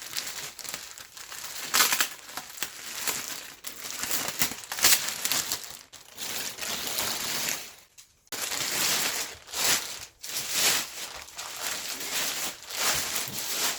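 Packing material being pulled about and handled during an unboxing, rustling and crinkling in irregular bursts, with a short pause about eight seconds in.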